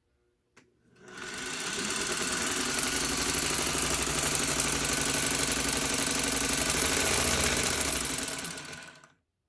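Singer 301A slant-needle sewing machine running unthreaded under its electric motor: it spins up about a second in, runs at a steady speed, then slows and stops near the end.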